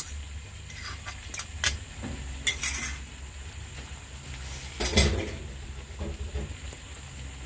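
Metal spoon and spatula clinking against a plate and a black wok: a few scattered clinks, with a louder knock about five seconds in.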